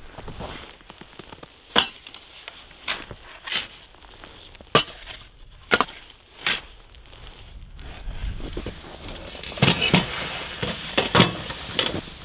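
Shovel crunching into cold, dry snow: a string of separate crunchy scoops about a second apart, coming closer together near the end.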